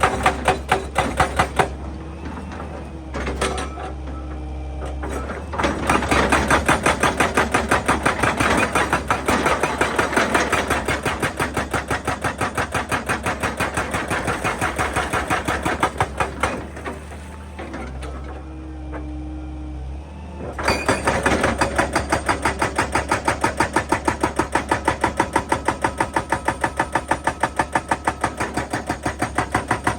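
Excavator-mounted hydraulic breaker hammering rock in rapid, regular blows over the steady run of the excavator's engine. The hammering stops twice for a few seconds, leaving the engine running, then starts again.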